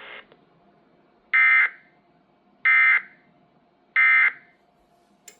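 Emergency Alert System end-of-message code: three short, identical bursts of warbling digital data tones, each about a third of a second long and a second apart, marking the end of the marine warning broadcast. A brief click follows near the end.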